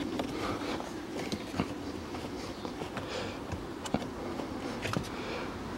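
Scattered light plastic clicks and scrapes as a cabin air filter is worked into its tight housing behind the glovebox by hand, over a steady low hum.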